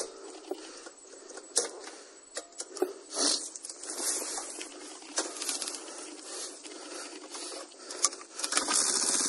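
Irregular rustling, crunching and rattling as the motorcycle moves over dry leaves with its engine silent. Near the end, just after a sharp knock, the Honda CD90's small single-cylinder engine starts and keeps running steadily.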